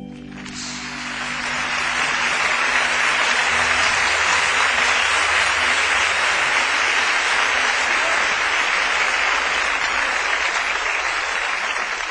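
Audience applauding as a dense, even wash of clapping that swells in over the first couple of seconds, holds steady, then cuts off abruptly at the end.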